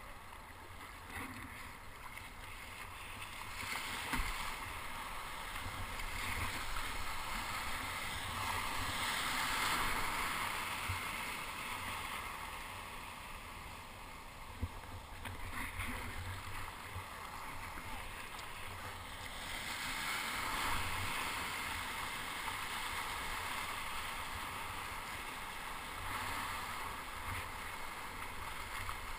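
Breaking surf and whitewater rushing and splashing around a kayak, swelling loud several times as waves wash past and then easing off, with a steady low rumble underneath and a couple of sharp knocks.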